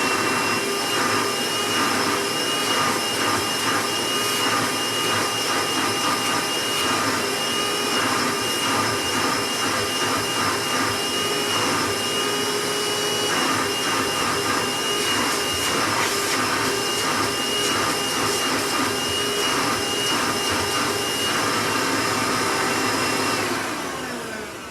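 Hoover Legacy Supreme upright vacuum's direct-air motor running steadily with a high whine and a rush of air, set to tool cleaning so all the suction goes through the hose. Near the end it is switched off and winds down, its pitch falling.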